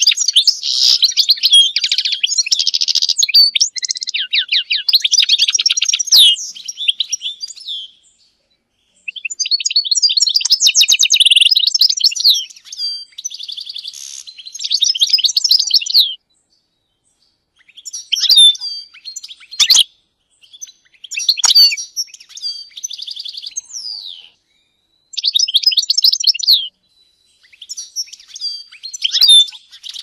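European goldfinch singing a fast, high twittering song of trills and quick notes. Long runs of song give way in the second half to shorter phrases with silent gaps between them.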